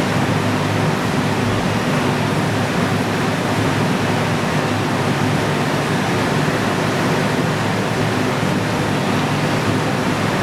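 Electric floor fan blowing steadily: an even rush of air over a low motor hum.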